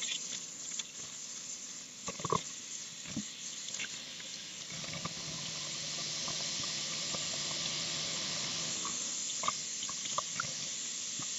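Kitchen faucet running a steady stream of cold water into a stainless steel sink as hands rinse a wet synthetic wig in it, with a few small splashes and clicks. The water sound grows slightly louder about halfway through.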